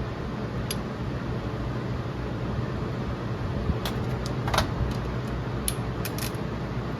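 Hand tools clicking and clinking against metal a few times, mostly in a cluster about four to six seconds in, over a steady low hum.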